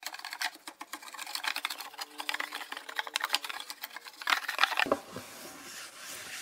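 Chisel plane paring dried glue beads off a glued-up wooden cutting board: a rapid run of crisp scraping clicks and ticks, loudest about four seconds in, then a softer brushing sound near the end as the chips are swept off.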